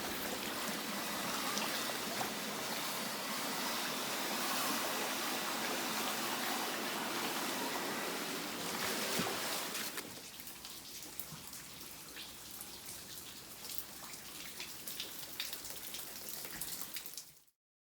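Floodwater running and trickling, steady for about ten seconds, then quieter with scattered drips and ticks until it cuts off just before the end.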